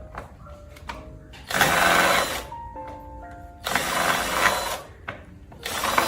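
A small power tool whirring in three short bursts of about a second each, over soft background music.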